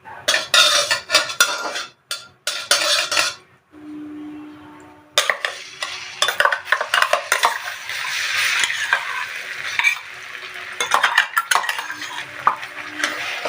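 A spoon scrapes and clatters in a cooking pan as ground ginger, sugar and spices are stirred in ghee. A steady sizzle of frying sets in about five seconds in, under continued scraping.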